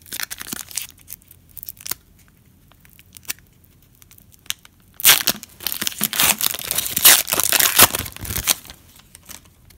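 The foil wrapper of a Donruss football card pack being torn open by hand. A few light crinkles come first. About five seconds in there is a loud stretch of tearing and crinkling foil lasting some three seconds as the pack is pulled apart and the cards come out.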